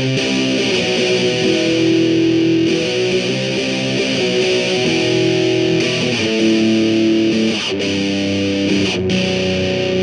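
Electric guitar played through a Behringer HA-40R guitar amp fitted with a Celestion G10 10-inch speaker: a series of held notes and chords, changing every second or two.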